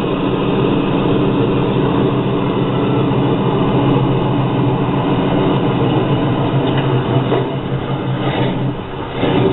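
A Chevy V8 with headers and a 3-inch exhaust idling steadily at a low, even pitch.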